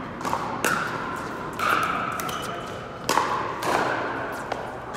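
Pickleball paddles striking a hard plastic pickleball in a rally: a series of sharp pops about a second apart, ringing in a large indoor hall.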